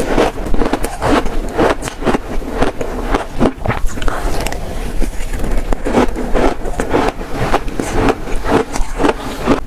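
Close-miked crunching bites into shaved ice, an irregular run of crisp crunches several times a second.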